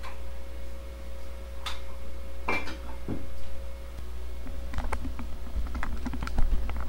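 Scattered light clicks and knocks of things being handled, with one louder knock about two and a half seconds in and a quick run of small clicks from about four and a half seconds on.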